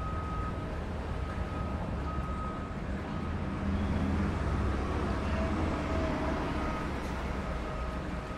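Airport baggage-claim hall ambience: a steady low rumble, a little louder midway, with a faint short beep recurring every second or two.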